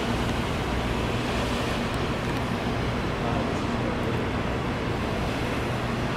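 Helium gas from a quenched 4.7 T Varian vertical-bore superconducting magnet rushing out of the roof quench vent: a steady, even rushing noise as the liquid helium boils off.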